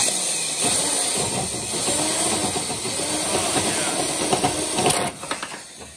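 Power drill running a hole saw through the sheet-steel strut tower, a loud grinding and squealing cut. A couple of sharp snaps come about five seconds in, then the sound fades away as the drill winds down: the bit has broken.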